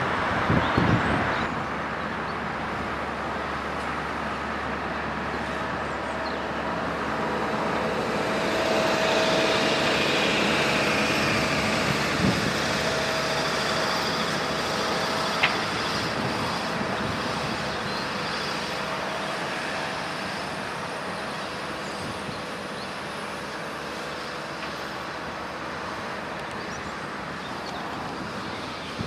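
Engines of rail track-renewal machinery running steadily, growing louder about ten seconds in and then slowly fading, with a few sharp metallic clanks.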